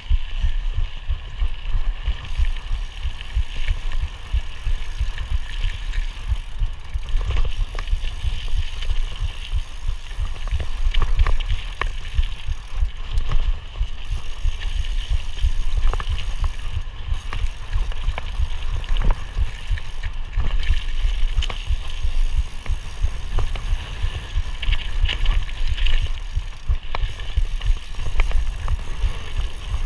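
Mountain bike being ridden along a trail: a steady low rumble with scattered clicks and knocks from the bike throughout.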